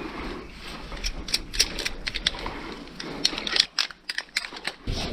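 Metal climbing hardware, carabiners and belay gear, clinking and clicking in irregular sharp clicks as rope and anchors are handled.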